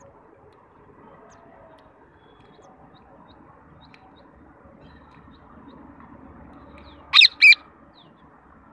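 Rose-ringed parakeet giving two short, harsh squawks in quick succession near the end, over faint outdoor background noise.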